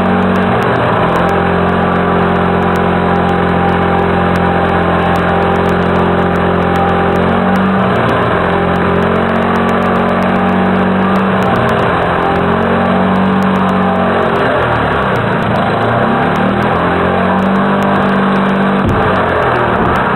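A motor running steadily at high speed, its pitch sagging and coming back up several times in the second half.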